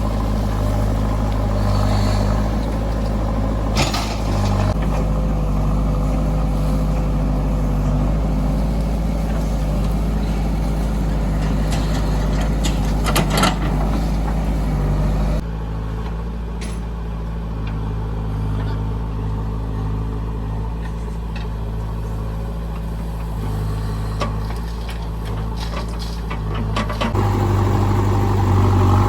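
Diesel engines of earth-moving machinery running steadily, with a few sharp metal clanks. The engine hum drops abruptly in level and changes pitch about halfway through.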